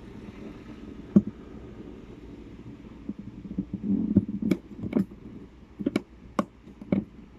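A black camera tripod being handled close up: its legs and head knock and click sharply several times, mostly in the second half, over low rumbling handling noise.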